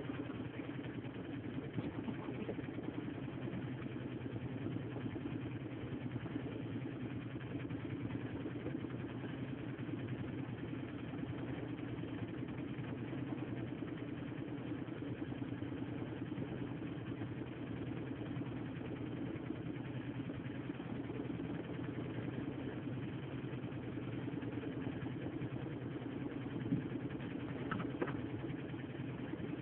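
A small boat's engine running steadily at a constant low hum, with a couple of light knocks near the end.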